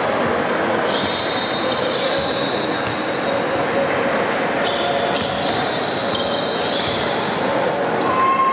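Basketball game on a hardwood gym court: the ball bouncing and sneakers squeaking in many short high chirps as players move, over a steady background of voices.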